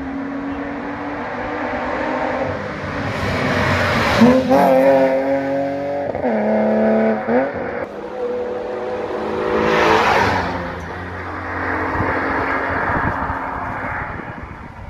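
Rally car engine at full throttle. It approaches with the pitch climbing and dropping at each gear change, passes close by about ten seconds in, then fades away.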